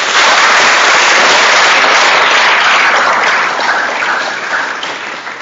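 Audience applauding in a hall, loud at first and dying down over the last couple of seconds into scattered claps.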